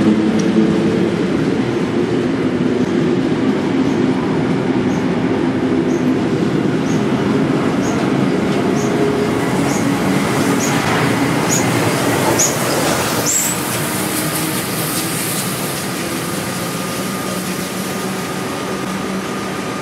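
Heritage Tait electric suburban train running past close by at speed, with steam locomotive A2 986 trailing at the rear going by about ten seconds in. A run of short high chirps, a little under one a second, grows louder and stops as the locomotive passes. A steady high hum is left near the end.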